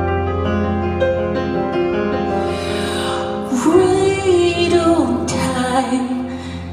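A song performed live: sustained piano chords, joined about halfway through by a woman singing.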